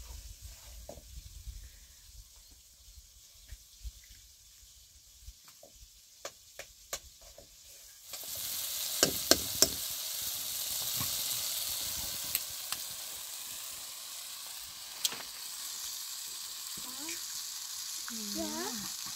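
Chopped tomatoes frying in oil in a metal pan: a loud sizzle starts suddenly about eight seconds in and keeps going. Just after it starts, a utensil clicks sharply against the pan three times. Before the sizzle there are only scattered small clicks.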